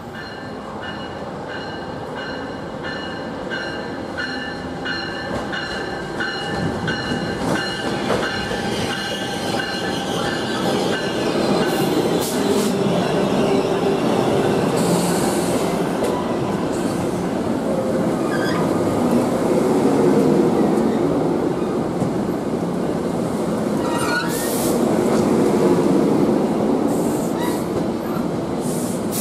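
NJ Transit train pulling into the station along the platform, growing louder as it nears, with rail and wheel noise and squealing wheels and brakes. During the approach a bell-like tone repeats about twice a second and then fades under the train noise.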